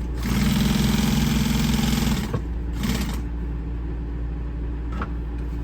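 Industrial walking foot upholstery sewing machine stitching steadily for about two seconds, then a short burst of stitches near the middle, over a steady low hum, with a couple of sharp clicks near the end.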